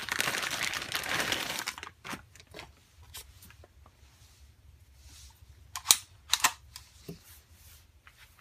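Plastic bag crinkling as a pistol is pulled out of it, then lighter handling with scattered clicks and knocks, the two loudest sharp clicks close together about two-thirds of the way in.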